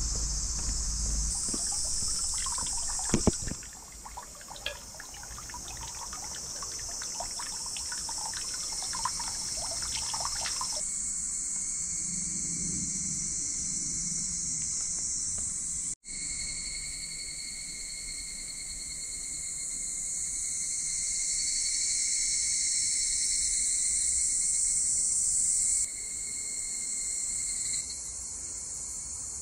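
Steady chorus of insects shrilling, its pitch and level shifting abruptly several times, with a few sharp knocks about three seconds in.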